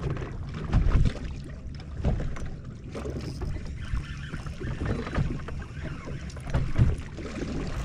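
Waves lapping and slapping against a bass boat's hull, with wind buffeting the microphone; heavier thumps come about a second in and again near the end.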